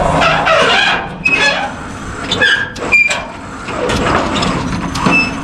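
Short, high metal squeaks and a few knocks over steady mechanical noise as a pickup truck is moved around on and beside a rollback's bed.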